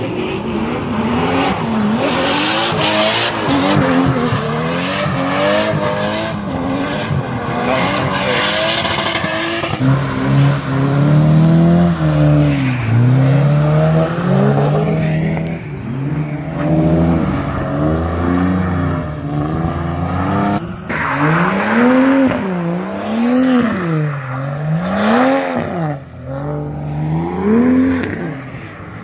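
Drift cars' engines revving hard, the revs rising and falling quickly as each car slides sideways through the corner, over tyre noise. Several cars are heard in turn, the sound cutting abruptly about ten and twenty seconds in.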